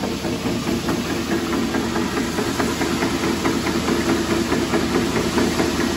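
ERCO 35C flanger machine running under its electric motor: a steady mechanical hum with a fast, light ticking from the drive, running smoothly.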